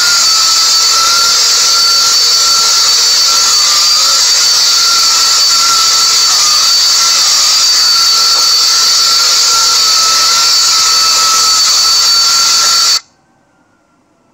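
Philips SpeedPro Max Aqua cordless stick vacuum running steadily with a high-pitched motor whine as it cleans a fabric cushion, cutting off suddenly near the end.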